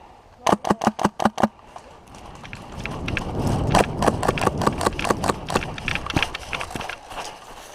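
A quick burst of about seven airsoft shots about half a second in, followed by a few seconds of running footsteps on the ground, with irregular clicks and rustle that build up and then fade.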